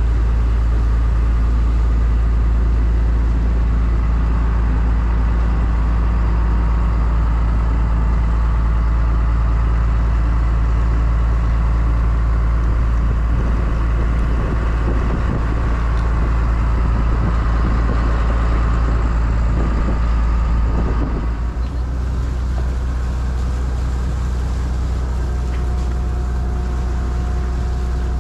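Fishing boat's engine running steadily under way, a low drone with the rush of the wake. About three-quarters of the way through it drops to a lower, quieter idle.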